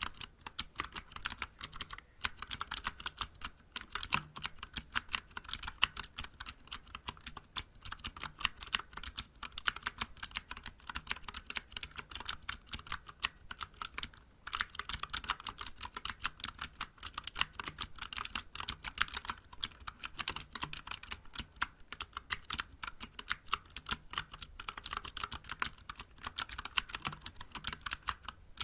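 Continuous fast typing on a Vortex Vibe mechanical keyboard with clicky Cherry MX Blue switches under SA-profile keycaps: a dense stream of sharp key clicks. Typing pauses briefly about two seconds in and again about halfway through.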